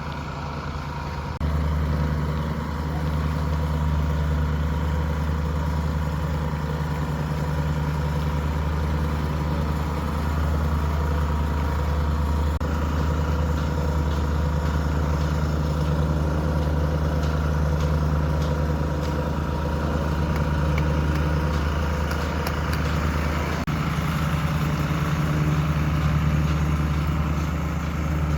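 Bulldozer's diesel engine running steadily, a low hum that gets louder about a second and a half in.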